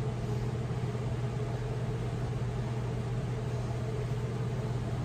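Steady low hum with an even hiss over it, from a running kitchen appliance, unchanging throughout with no distinct knocks or clinks.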